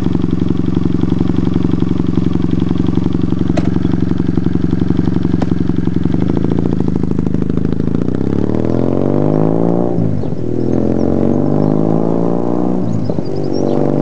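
Kawasaki W800's 360-degree parallel-twin engine idling steadily, then pulling away under acceleration. The revs climb, drop at a gear change about ten seconds in, climb again, and drop at another shift near the end.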